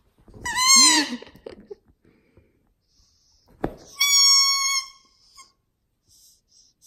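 Rubber squeaky toy, a spiky football, squeaked twice: a wavering squeak that rises and falls about half a second in, then after a click a longer, steady squeak about four seconds in.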